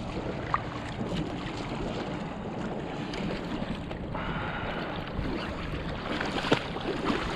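Wind buffeting the microphone over shallow water sloshing around a wader, with a few small clicks and splashes.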